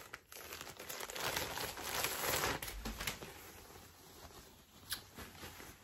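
Rustling and crinkling of a shirt being handled and pulled on, loudest in the first few seconds and then fading, with a single sharp click about five seconds in.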